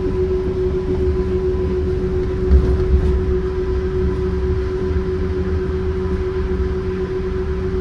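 Cabin ride noise of a Yurikamome rubber-tyred automated guideway train under way: a steady low rumble with a constant hum. Two brief bumps come about two and a half and three seconds in.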